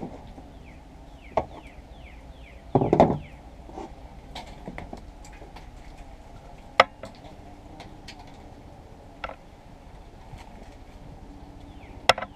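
Scattered clicks and knocks of hands handling wiring parts and tools, with a short cluster of louder knocks about three seconds in and single sharp clicks every few seconds.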